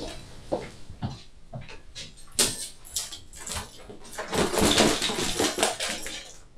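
Footsteps knocking on a wooden floor about every half second, then from about four seconds in a dense, loud rustle as a handbag is shaken out upside down and its contents drop onto a bed.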